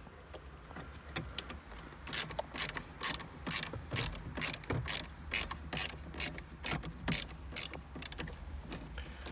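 Phillips screwdriver undoing one of the screws that hold a Volkswagen Golf 6's factory radio in the dash, with a regular clicking about three times a second from about two seconds in.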